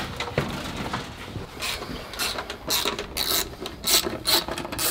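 Small hand ratchet clicking in short back-and-forth strokes, about two a second, while it turns bolts on the engine's valve cover. It starts about a second and a half in, after a couple of knocks.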